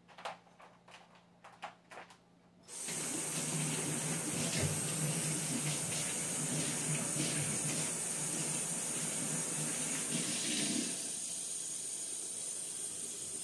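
Kitchen faucet running into the sink for about ten seconds, water splashing steadily as floured hands are rinsed, then turned off abruptly. A few light knocks come just before the water starts.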